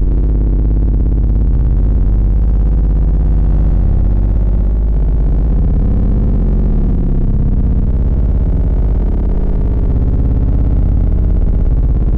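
Loud, continuous deep synthesized bass from a subwoofer test track, heaviest in the lowest notes with little treble.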